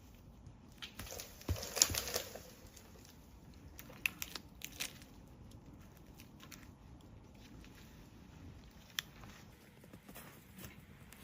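Rustling, crinkling handling sounds with scattered sharp clicks and snaps, the loudest cluster about two seconds in.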